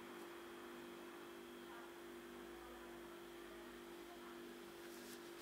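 Near silence: room tone with a steady faint hum.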